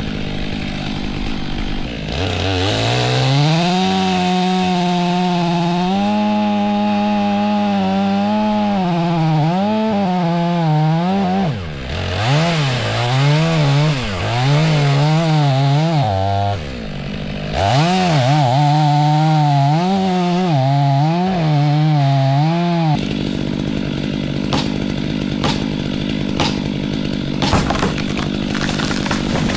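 Stihl MS 500i chainsaw revved up to full throttle and cutting into a tree trunk, its pitch wavering under load, with a short easing off about halfway before it bites in again. About three-quarters of the way through the saw stops, leaving a steady low engine hum and a few sharp clicks.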